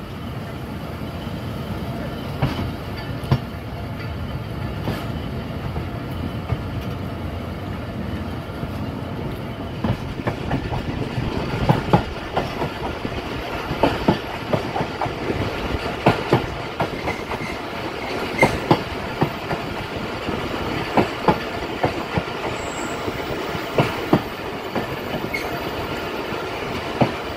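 Bahauddin Zakariya Express passenger coaches running along the line, heard from an open carriage window: a steady rumble with the wheels clacking over rail joints, the clacks coming thick and fast from about ten seconds in.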